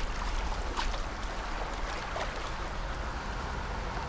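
Steady wind rumbling on the microphone across open moorland, with scattered rustles and small clicks from a hiker's waterproof jacket and backpack as she moves.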